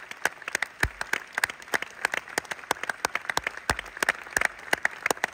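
An audience applauding: a dense patter of many hands clapping, with some sharp, loud single claps from hands close by standing out.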